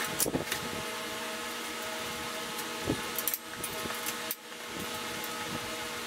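Steady mechanical hum, like a running shop fan, with a few light knocks and clicks as a metal bracket and its bolts are handled near the start and again about three seconds in.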